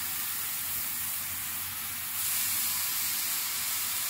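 Raw beef burger patties sizzling on a hot flat-top griddle, a steady frying hiss that gets louder about two seconds in as more patties go down.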